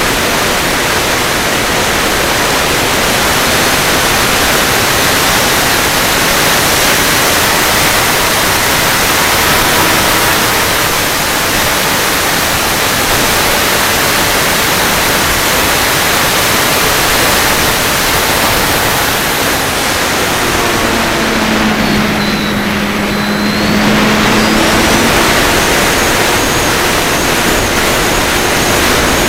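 Steady, loud rushing hiss of wind and propeller wash on an FPV drone's onboard camera microphone in flight. A little past two-thirds of the way in, the motors' tone becomes audible for a few seconds, bending in pitch.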